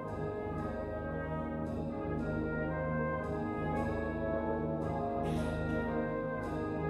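Brass band playing full sustained chords, with short accented strokes coming at a fairly regular beat.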